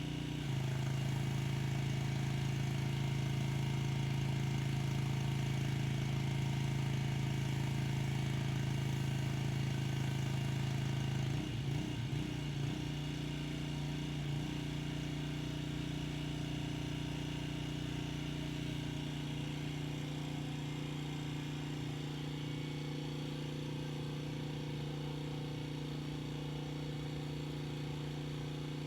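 Pressure washer engine running steadily. About half a second in, its note gets louder and drops slightly; around eleven seconds in it rises again and eases off a little, with a brief unsteady patch. It then runs on evenly.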